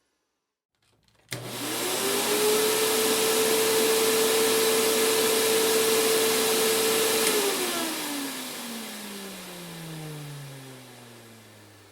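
Vacuum cleaner switched on with a click about a second in: the motor whine rises quickly to full speed over a loud rush of air. It runs steadily for about six seconds, then is switched off and the motor winds down, its whine falling in pitch as the sound fades.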